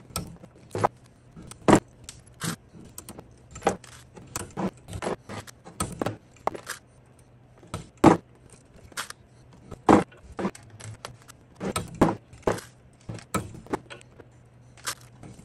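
Many short, sharp, irregular metal taps and clinks: a small hammer tapping blind rivets down into a steel bushing held in a bench vise, and needle-nose pliers pulling out the rivet mandrels. The loudest taps come about 8, 10 and 12 seconds in.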